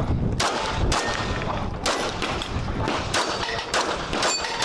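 Staccato 9mm pistol firing a string of about seven shots at uneven spacing while a competitor shoots a practical-pistol stage.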